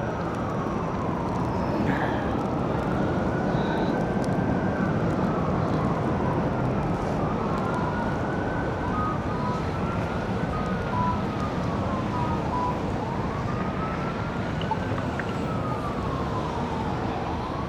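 Ambulance siren wailing, slowly rising and falling about every three to four seconds, over a steady din of city traffic.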